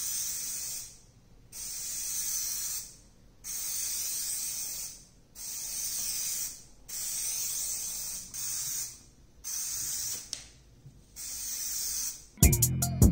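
Aerosol can of lens tint spraying onto a tail light lens in about eight passes of a second or so each, with short pauses between.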